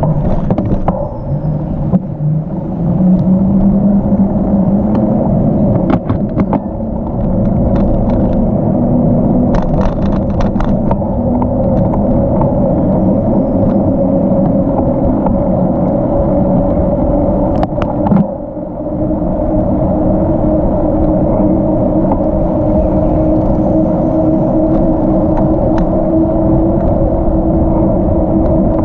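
Riding noise from a bicycle on a rail trail: wind rushing over the microphone and tyres rolling, with a steady hum and a few sharp knocks from bumps. After about 18 seconds the hum shifts to a higher pitch.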